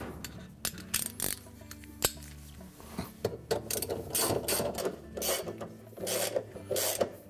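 Socket ratchet running in the bolts that hold a washer's inner basket to the hub: a few light clicks, then from about three and a half seconds in a run of short ratcheting strokes.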